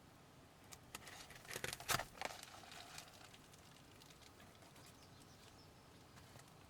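A quick cluster of soft clicks and rustling, loudest about two seconds in, over a faint steady hiss.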